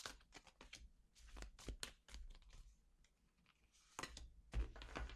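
Oracle cards being shuffled and handled: a run of faint, irregular light clicks and snaps, with a couple of louder taps near the end.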